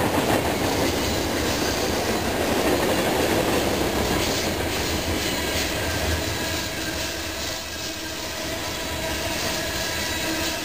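Freight train of tank cars rolling past: a steady rumble of wheels on rail with the clickety-clack of wheels over rail joints and a faint, thin wheel squeal. It eases off slightly in the second half.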